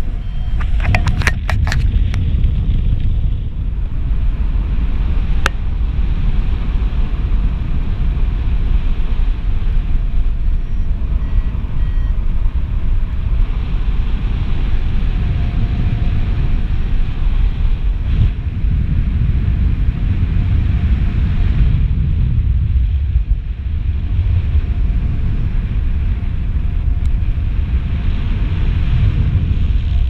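Wind buffeting a camera microphone on a paraglider in flight: a steady low rumble. A few sharp clicks come about a second in, and one more about five seconds in.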